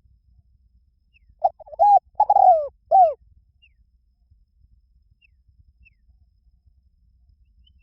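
Spotted dove cooing: one phrase of about five falling coos starting about a second and a half in. A few faint high chirps of another small bird follow.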